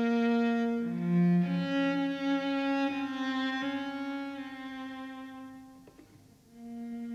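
Solo cello bowing slow, held notes that change pitch a few times. The sound fades away about six seconds in, and then a new low note is bowed and held.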